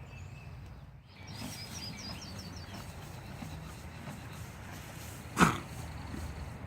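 A foal gives one short, loud snort about five seconds in. A small bird chirps rapidly over steady outdoor background noise earlier on.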